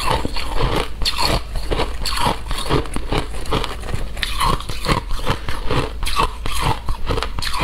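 Close crunching of frozen shaved ice: a steady run of crisp, crackling crunches, several a second, as the ice is bitten, chewed and broken apart.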